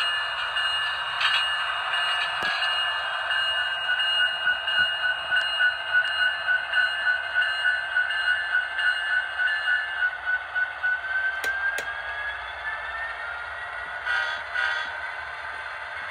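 DCC sound decoder in a Walthers HO scale SD70ACe model locomotive playing diesel locomotive sounds through its small onboard speaker as the model runs. The sound pulses about three times a second for several seconds, then a whine rises in pitch near the end, with a couple of sharp clicks.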